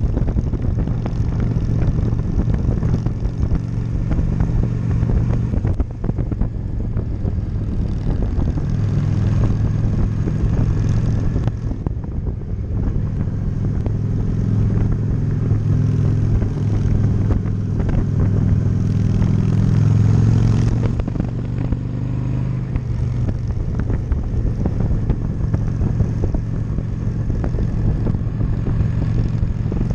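Honda Shadow V-twin motorcycle engine running under way, with wind noise on the helmet camera. The engine note rises about a third of the way in, holds, and drops back about two-thirds of the way through as the throttle changes through the curves.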